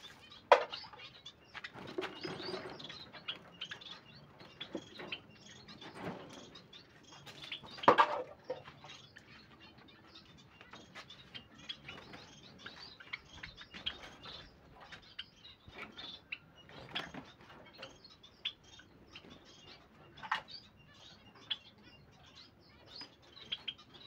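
Caged finches chirping and fluttering their wings, over scattered clicks and rattles of wire cage doors and plastic drinking cups being handled. Sharper knocks stand out about half a second and about eight seconds in.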